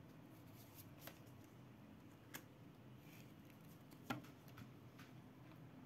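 Near silence with a few faint, sharp clicks and taps, the slightly loudest just after four seconds in: tarot cards being handled on a table.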